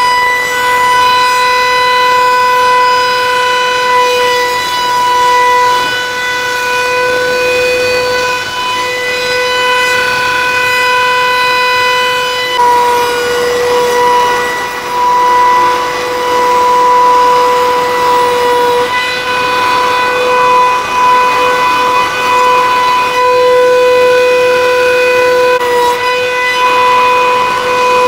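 Spindle motor of a Lee Hyun multi wood machine whining steadily at a high pitch while its flattening bit takes a 2 mm roughing pass across a wood slab, with cutting noise underneath. The pitch shifts slightly about twelve seconds in and again near the end as the load on the cutter changes.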